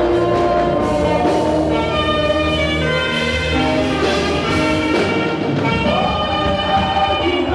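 Saxophone playing a lively lead melody of held and moving notes over a live band accompaniment, in African high-praise gospel style.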